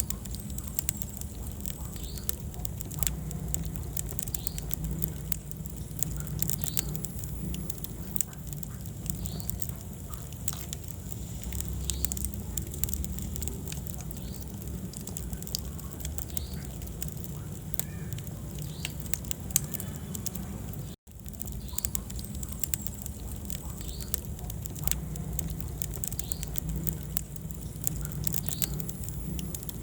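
Wood fire crackling in a fireplace: frequent sharp pops and snaps over a low, steady rumble of the flames. The sound cuts out for an instant about two-thirds of the way through.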